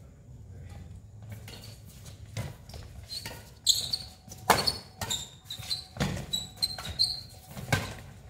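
Badminton doubles rally: sharp racket strikes on the shuttlecock begin about two seconds in and come roughly once a second, mixed with footsteps and brief shoe squeaks on the concrete court.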